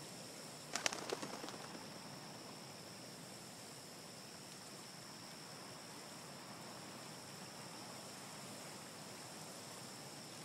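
Faint forest nature ambience: a steady high-pitched insect drone over a soft hiss. About a second in comes a quick run of sharp clicks that dies away within a second.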